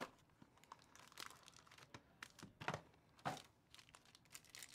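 Faint crinkling and rustling as a cardboard trading-card hobby box is opened and a foil-wrapped card pack is handled. Short scattered crackles, the loudest a little under three seconds in and again about a half-second later.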